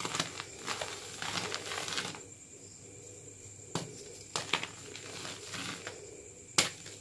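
Blocks of plain gym chalk crushed and crumbled in bare hands: a dense gritty crunching for the first two seconds, then quieter rubbing broken by a few sharp cracks as blocks are pressed and snap, the loudest one near the end.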